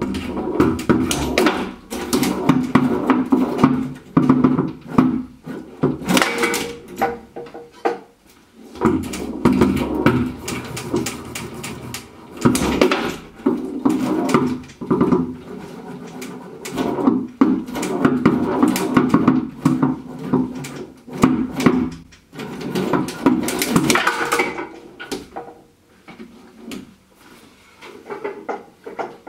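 Foosball table in play: a quick, irregular run of clacks and knocks as the ball strikes the plastic player figures and the table walls, with the steel rods sliding and rattling. It comes in bursts with short lulls, and grows quieter near the end.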